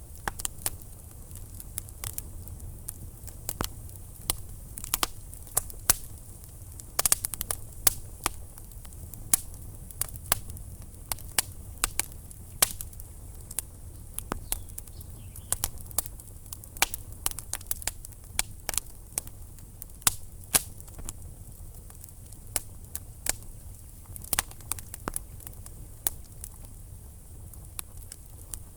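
Wood fire burning in a fireplace, the logs crackling with frequent irregular sharp pops and snaps over a steady low rumble.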